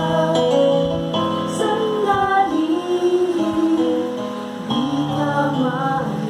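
A slow worship song: sustained music with a voice singing a gliding melody.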